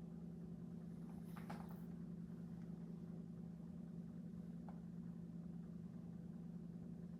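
A steady low hum, with a faint brief sound about a second and a half in and a tiny click a few seconds later.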